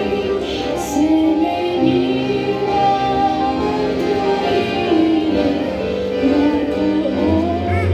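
A woman singing a Christian song of praise into a handheld microphone over held instrumental accompaniment.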